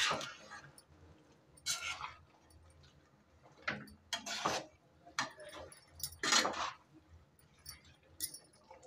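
Perforated steel spatula stirring potato and cauliflower pieces in masala in a kadai, in short separate scrapes about a second apart.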